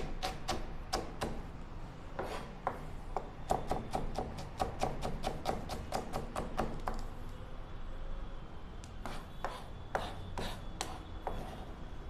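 Kitchen knife chopping on a cutting board in quick, even strokes, about four a second. The strokes pause around seven seconds in, then a few separate cuts follow near the end.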